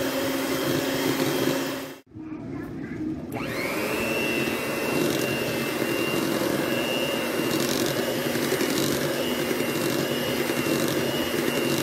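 Kenwood electric hand mixer running, its beaters churning a stiff, crumbly cheese-bar batter. There is a short drop about two seconds in, after which a steady high motor whine comes in and holds.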